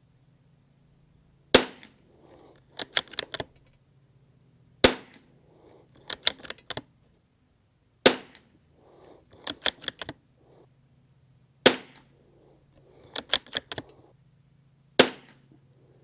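Five shots from a Savage Mark II .22 rimfire bolt-action rifle, about three seconds apart, each sharp crack followed about a second later by a quick run of metallic clicks as the bolt is worked to chamber the next round.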